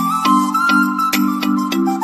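Background music with a steady beat, held chords and a light melody.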